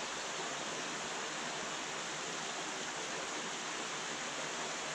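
Steady rushing of water spilling over a small canal weir.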